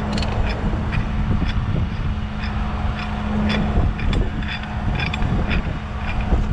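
Heavy truck's diesel engine running steadily with a constant low hum, while a recovery chain, grab hook and winch-cable eye clink lightly many times as they are handled.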